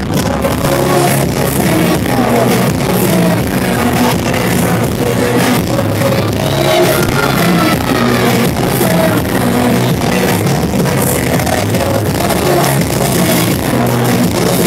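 Loud amplified live pop music with a male singer improvising over it, heard through the hall's PA.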